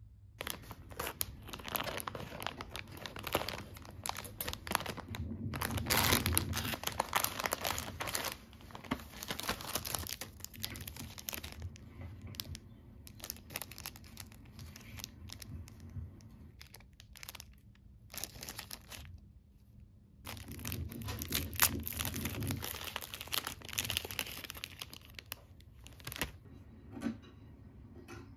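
Plastic Pocky packet wrappers crinkling and tearing open as they are handled. The sound comes in two long bouts of crackling, with quieter, sparser rustling between them.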